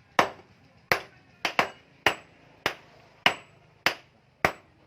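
Blacksmith's hand hammer striking metal, steady blows about every 0.6 seconds, one a quick double, some leaving a short ring.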